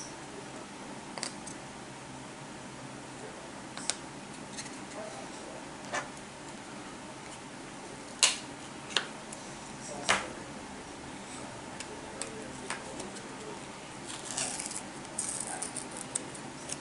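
Sharp clicks and taps of a metal utensil against a dish, about half a dozen spread apart, the loudest a little past halfway, then a quick flurry of lighter scraping clicks near the end, over a steady low hum.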